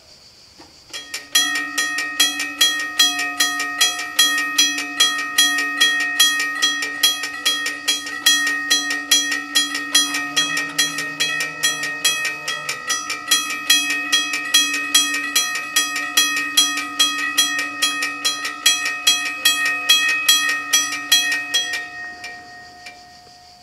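Level crossing warning bells ringing rapidly, about three strikes a second, signalling that the crossing is closing for an approaching train. They start about a second in and stop about 22 seconds in, the ringing dying away briefly.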